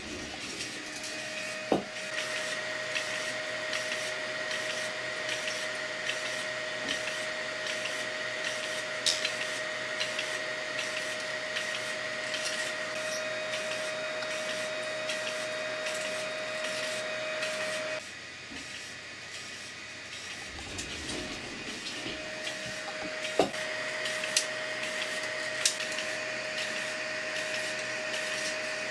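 3D printer's geared filament extruder stepper motor whining steadily through rapid back-and-forth retractions of the filament, with regular faint ticks and a few sharp clicks. The whine stops for about four seconds a little past the middle, then starts again.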